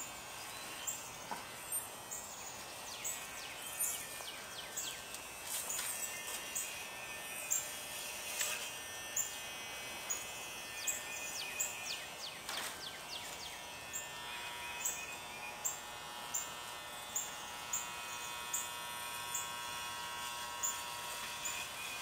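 Electric hair clippers buzzing while cutting hair, the hum growing clearer about two-thirds of the way in. Over it, a bird chirps sharply and high-pitched about every two-thirds of a second.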